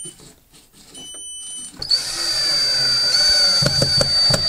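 A stud finder gives a steady high beep, then a cordless drill starts about two seconds in and whirs steadily into the wall for about three seconds, with a few knocks near the end.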